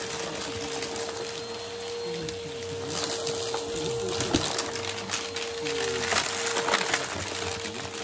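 Bissell PowerForce Helix Turbo Rewind upright vacuum running over carpet with a steady whine and rushing suction, with scattered clicks and rattles as small beads and bits are sucked up.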